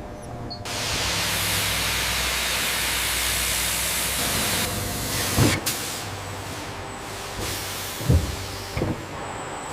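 A steady, loud hiss that starts just under a second in and drops to a softer hiss about four and a half seconds in, with three short low thuds in the second half.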